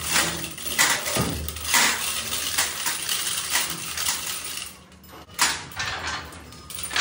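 Steel lifting chains clinking and rattling in irregular jangles as a heavy machined steel spindle slung from them is moved by hand, with a short lull about five seconds in.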